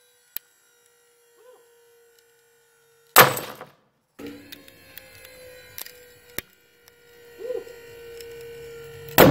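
A glue-in climbing bolt in concrete breaking under a hydraulic pull: a very loud sharp crack about three seconds in, with a brief ring. The same crack comes again near the end, over a faint steady hum.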